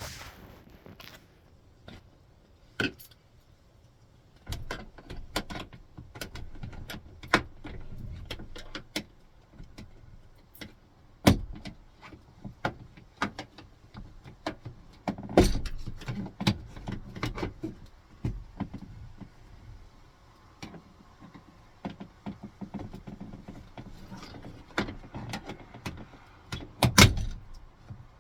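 Plastic pry tool working at a 2000 Toyota Sienna's sliding-door interior trim panel: irregular clicks, scrapes and sharp plastic snaps, with a few louder cracks about a third of the way in, in the middle and near the end.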